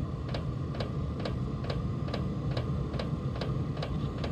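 Chinese diesel parking heater's fuel dosing pump ticking steadily, a little over two ticks a second, over the steady hum of its combustion-air blower. The heater is in a start-up attempt on a battery too low to sustain it.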